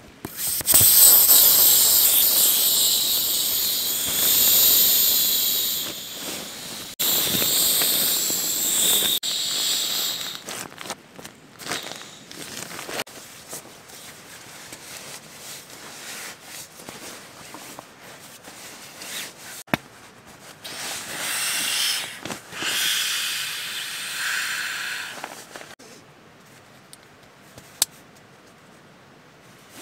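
Air hissing out of an inflatable sleeping pad's open valve as the pad is pressed down to deflate it, in two long rushes over the first ten seconds. Then comes quieter rustling of nylon fabric with a few clicks, and another rush of air about two-thirds of the way through.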